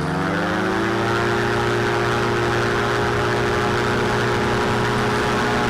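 Quicksilver ultralight's engine and propeller, rising in pitch over the first second as the engine speeds up, then running steady.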